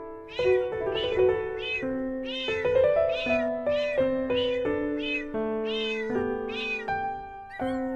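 Music made of cat meows: a quick run of about a dozen short meows, roughly two a second, set in time over held musical notes, the meows following the tune.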